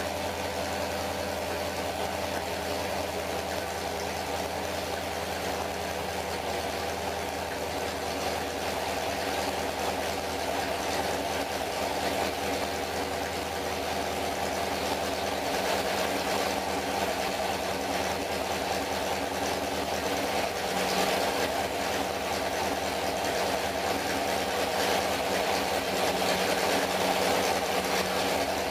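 Pontiac 400 V8 stroked to 461 cubic inches, with a Comp Cams hydraulic roller cam and a stock Quadrajet four-barrel carburettor, running steadily on an engine dyno. It gets a little louder over the second half.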